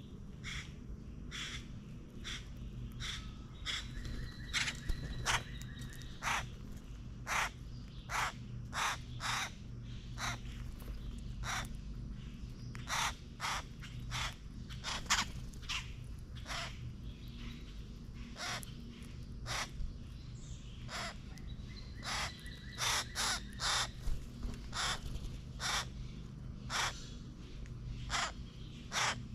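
Boat-tailed grackles giving short, harsh chuck calls, dozens in irregular runs, some coming in quick clusters. A fainter drawn-out whistled note sounds twice, near the start and again past the middle.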